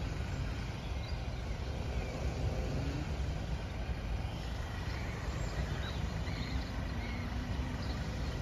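Steady low outdoor rumble of traffic and wind noise at a railway level crossing, with a few faint high chirps.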